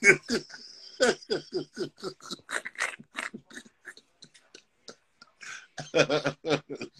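Indistinct speech: a voice talking in short broken phrases with pauses.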